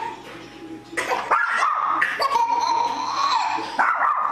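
Small dog whining in long, drawn-out, wavering tones that start suddenly about a second in and go on in a few held stretches.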